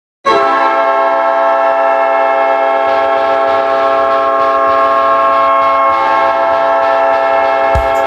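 Winnipeg Jets goal horn sounding one long, steady, loud blast. It starts sharply and holds one unchanging chord of tones. A regular drum beat from the goal song comes in under it just before the end.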